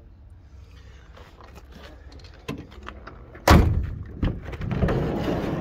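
Ford Transit van door being opened by its handle: a loud clunk of the latch releasing about three and a half seconds in, a second knock just after, then a longer rough noise as the door comes open.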